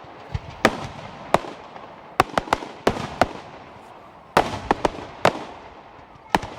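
Fireworks bursting: about a dozen sharp bangs at irregular intervals, some in quick clusters, each trailing off in an echo.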